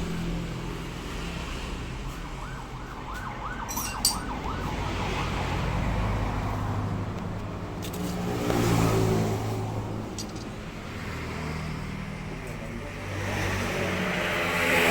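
Motor vehicle engines running and passing, their hum swelling and fading, with a short run of quick warbling chirps about three seconds in.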